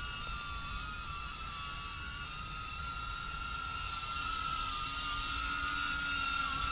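DJI Avata FPV drone's propellers whining steadily as it hovers and turns, the pitch wavering slightly as the motors adjust. It gets a little louder about four seconds in.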